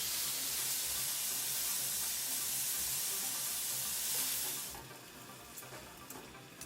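Teriyaki-marinated chicken yakitori skewers sizzling steadily as they cook. The sizzle cuts off suddenly about five seconds in, leaving a few faint clicks.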